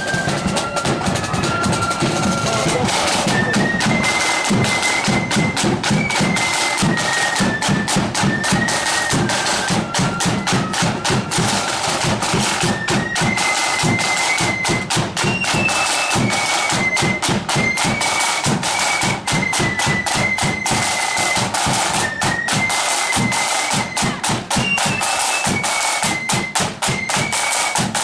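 A marching flute band playing a tune: massed flutes carry a high melody of held, stepping notes over rapid, unbroken snare drumming and bass drum beats.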